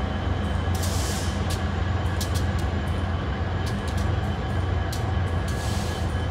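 A slow Union Pacific intermodal freight train rolling past, its cars making a steady low rumble with irregular clicks from the wheels and rails. Short hissy bursts come about a second in and again near the end.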